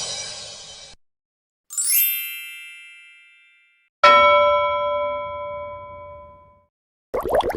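Comedy sound-effect clips in sequence: a cymbal crash fades out, then a bright high chime dings and fades, then a bell is struck once and rings out for about two and a half seconds. Near the end a new bubbly, gurgling effect starts.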